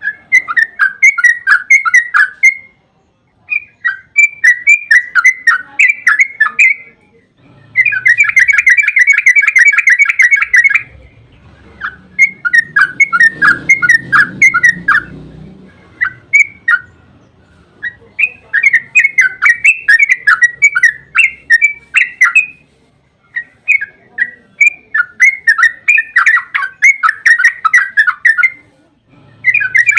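Yellow-vented bulbul (trucukan) singing its long rolling song: phrases of quick, bubbling notes two to three seconds long, separated by short pauses, some running into a dense, fast trill.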